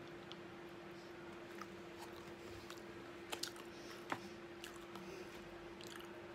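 Close-up chewing of a mouthful of pan-roasted potato, with soft mouth sounds and scattered light clicks; a few sharper clicks stand out a little past halfway.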